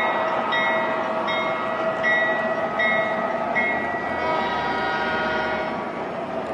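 MTH model coal train's hopper cars rolling past on the track with a steady rumble. A short ringing tone repeats about every three-quarters of a second until about halfway through.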